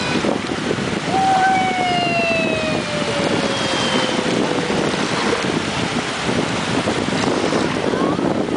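Wind noise on the microphone and water rushing on a moving jet ski. About a second in, a high pitched tone starts and falls slowly in pitch over about four seconds.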